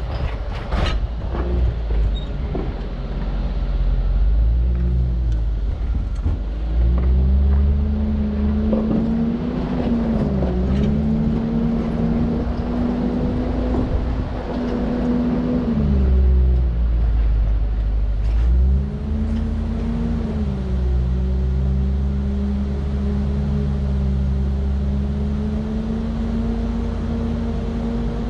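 Land Rover Discovery 2's engine pulling the truck over rough off-road ground, its revs rising and dipping several times, with a few sharp knocks near the start.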